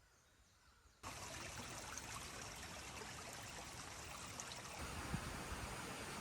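Steady rushing outdoor noise, like running water or wind, that cuts in abruptly about a second in after near quiet.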